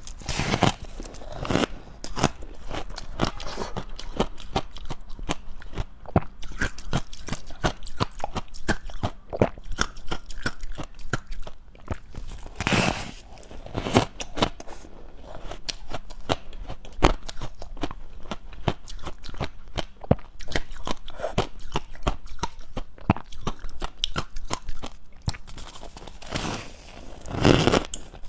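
Close-miked chewing of dry, powdery freezer-frost ice: a dense run of crisp crunches, with louder bites near the start, about halfway through and near the end.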